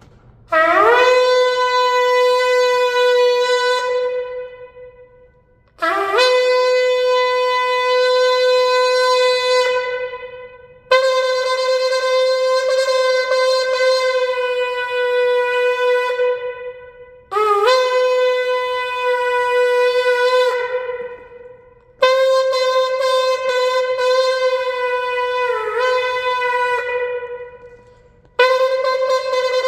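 Homemade 15-inch ram's horn shofar blown in six long blasts, each scooping up in pitch at the start, then held steady for about four to five seconds before fading.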